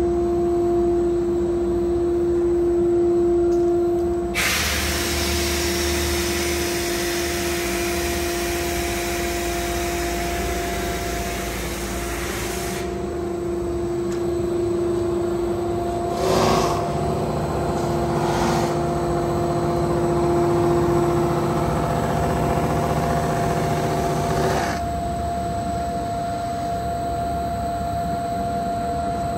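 Cosma Typ 400 sanding and structuring machine running, its motors humming steadily. From about four seconds in, a softwood board passing through the sanding and brushing heads adds a loud, even hiss. The hiss changes several times as the board reaches successive heads, then drops away near the end, leaving the hum.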